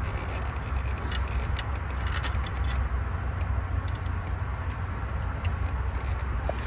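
Light metal clicks and clinks as a new water pump is handled and pressed into place against the engine block over its gaskets, over a steady low rumble. The clicks are thickest about one and a half to two and a half seconds in.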